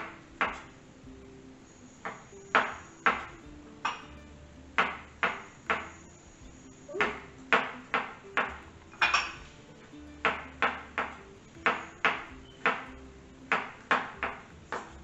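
Chef's knife chopping garlic on a wooden cutting board: sharp knocks of the blade striking the board, about two a second in an uneven rhythm, with a short pause about a second in.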